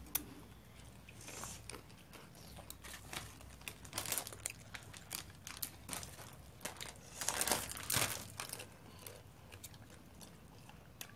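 Fried potato crisps crunching and crackling in short, scattered bursts, busiest about four seconds in and again around seven to eight seconds in.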